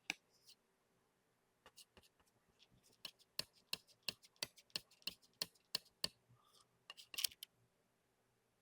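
A painting tool tapping against a canvas, sharp light clicks about three a second for a few seconds, with a short scrape near the end.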